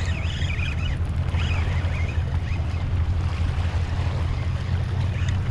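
Wind buffeting the microphone as a steady low rumble, over the wash of inlet water against the jetty rocks. Faint high wavering calls come and go near the start and again a second or two in.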